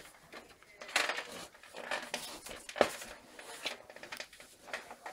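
Hands handling an old desktop computer's sheet-metal case, making irregular metallic clicks and clatter, the sharpest almost three seconds in.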